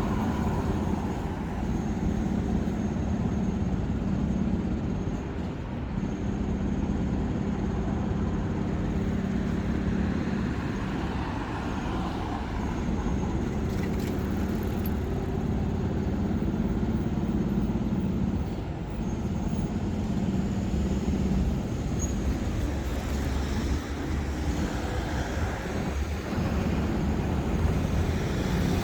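City street traffic: a steady low hum of motor vehicles running and passing on the road.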